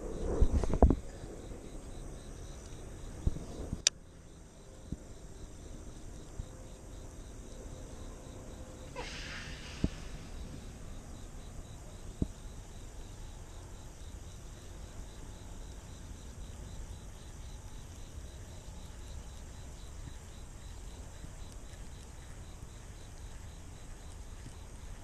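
Insects chirping steadily in the background, a faint even pulsing, over low outdoor noise. There is a low rumble at the start, a sharp click about four seconds in, a short hiss around nine seconds, and a couple of small clicks.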